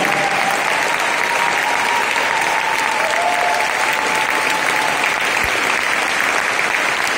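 A large audience applauding, steady clapping throughout, with a faint held note under it for the first five seconds or so.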